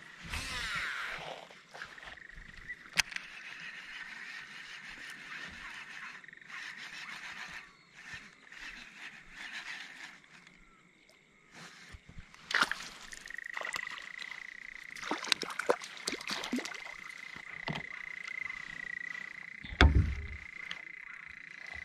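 Frogs calling in a steady high trill, broken off for a few seconds midway, with scattered sharp clicks and knocks of fishing gear against a plastic kayak and a heavier thump near the end.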